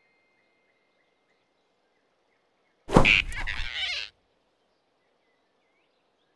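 A single sudden cartoon sound effect about three seconds in: a sharp hit followed by about a second of rushing noise that cuts off abruptly, with faint ambience around it.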